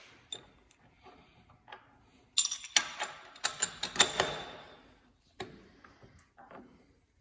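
Metal parts being handled in a workshop: scattered light clicks, then a burst of sharp ringing clinks and knocks in the middle, as steel pieces and tools are picked up and set down.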